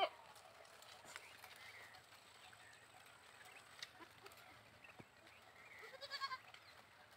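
Goats bleating: the tail of one bleat at the very start, then a short, quavering bleat about six seconds in, the loudest sound. Between them there are only a few faint clicks.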